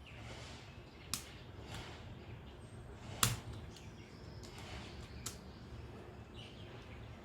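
Hard plastic Rubik's cube pieces clicking as the cube is put back together by hand: a few sharp clicks, the loudest about three seconds in.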